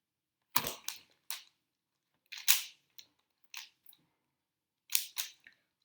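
Rubik's Cube being turned fast in a speed-solve: sharp plastic clicks and clacks of the layers turning, in irregular clusters about a second apart.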